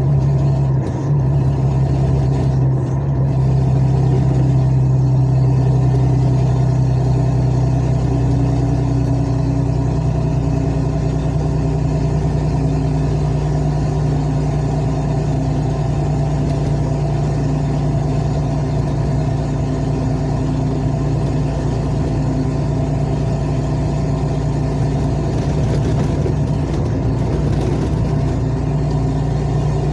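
Engine of a vehicle driving on the highway, a steady low drone that barely changes in pitch, with road noise.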